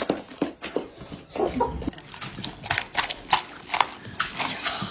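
A dog chewing a treat, with irregular crisp crunching clicks.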